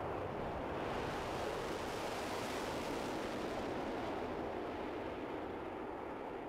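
Concorde's four Rolls-Royce/Snecma Olympus 593 turbojets at takeoff power with reheat lit as it climbs away: a steady jet roar. Its hiss swells about a second in and fades after about four seconds as the aircraft passes and recedes.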